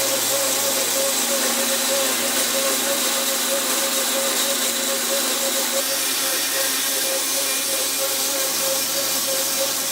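Bandsaw running steadily with a constant motor hum and tone under an even hiss, cutting out a wooden bracket.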